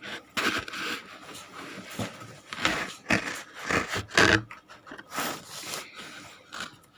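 Pizza being handled and eaten close to the microphone: irregular scraping, tearing and rustling with a few sharp clicks.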